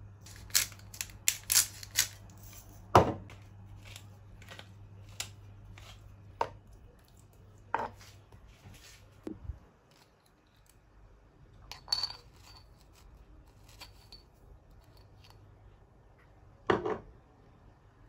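A series of sharp clicks and taps from kitchen utensils and dishes being handled during food prep, clustered in the first three seconds and scattered after, over a low hum that stops about halfway through.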